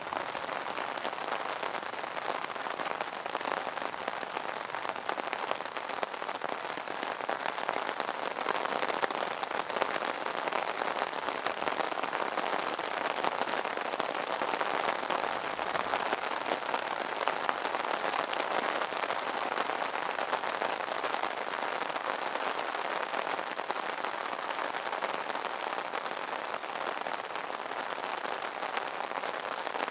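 Steady rain pattering on an umbrella canopy, a dense, continuous patter of drops with no pauses.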